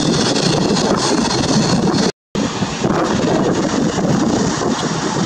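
Steady rushing noise of a Boeing 737-800's CFM56-7B jet engines at taxi power, mixed with wind on the microphone. The sound drops out briefly about two seconds in, then resumes.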